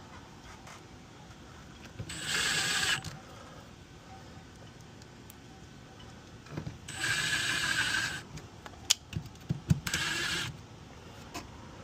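Power drill driving screws in three short bursts of about a second each, with a few sharp clicks of handling between the last two.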